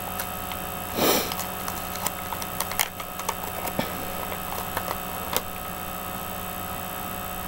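Small plastic toy pieces clicking and tapping as they are handled, with a short rustle about a second in, over a steady electrical hum.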